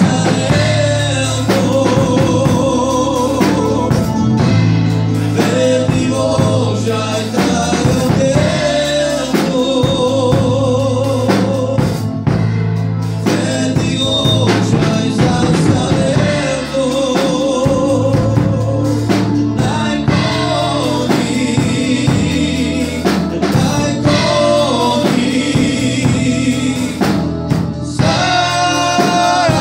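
A gospel praise song performed live: a man sings with a wavering vibrato into a microphone over electronic keyboard accompaniment with a steady bass and drum beat.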